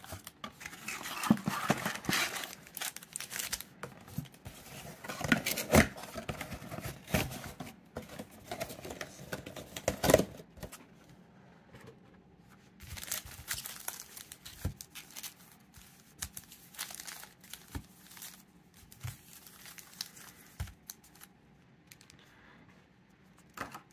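A cardboard card box being handled and foil-wrapped trading card packs being pulled out of it, crinkling and rustling in irregular bursts with a few small knocks. The rustling comes in two busy stretches with a short lull in the middle, and it dies down near the end.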